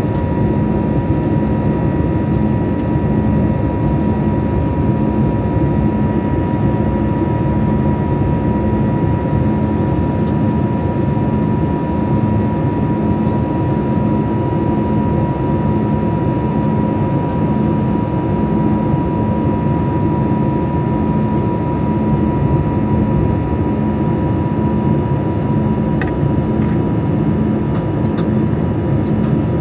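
Airbus A320neo passenger cabin in flight: a loud, steady drone of the jet engines and rushing air. Over it sit a thin steady tone that fades out about two-thirds of the way through and a low hum that pulses at a regular beat.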